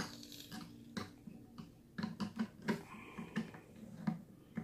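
A screwdriver and plastic parts give irregular small clicks and taps as a screw on the drain fitting of a plastic portable shampoo bowl is tightened. The clicks come more often from about halfway through.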